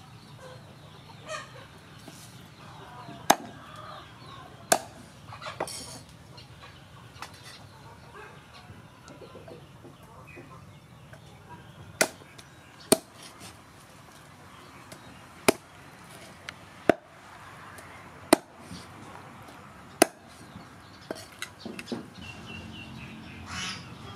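Cleaver chopping raw chicken on a round wooden chopping block: a series of sharp, separate chops at irregular intervals, with a few lighter knocks near the end.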